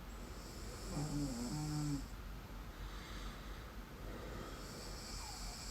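A sleeping person snoring. The breaths go in and out with a hiss, and about a second in there is a short buzzing snore with a pitch to it.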